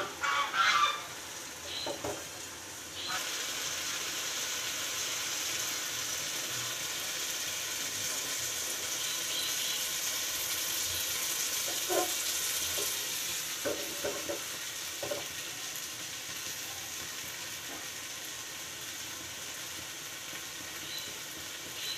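Small fish sizzling steadily as they fry in a metal kadai on a gas stove; the sizzle gets louder about three seconds in. A few short knocks and scrapes of stirring against the pan.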